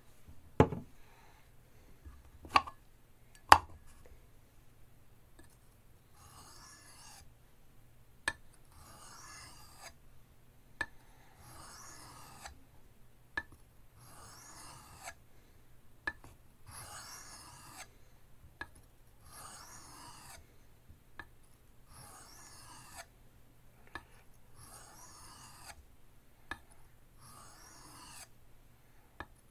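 Steel knife blade being stroked across an oiled Arkansas sharpening stone: a steady run of short rasping scrapes about a second and a bit apart, with light clicks between strokes. A few sharper knocks come in the first few seconds as the knife is set on the stone.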